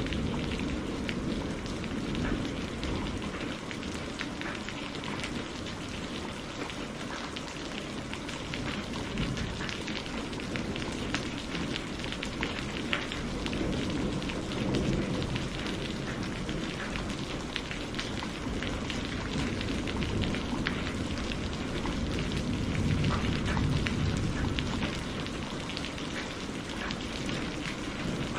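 Steady rain with dense pattering of drops, and a low rumble of thunder swelling now and then underneath, about halfway through and again near the end.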